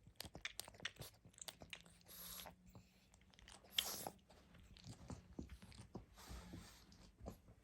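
A sleeping pug breathing noisily, a soft breath about every two seconds, with many small clicks and crackles in between.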